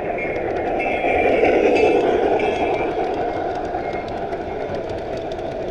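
Model train rolling along its track, wheels running on the rails with a steady rumble that swells a second or two in; faint quick clicks come in near the end.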